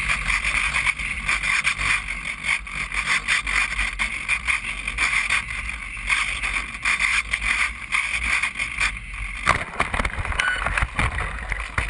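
Onboard sound of a radio-controlled plane in flight: its motor and propeller running steadily, with wind buffeting the camera. About nine and a half seconds in, the plane crashes into brush with a clatter of branches, and the propeller keeps spinning afterwards.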